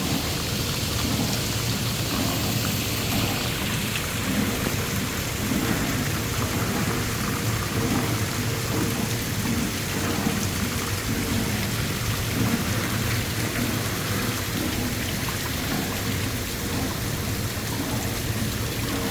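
Continuous rushing water noise, steady throughout, with a low rumble underneath.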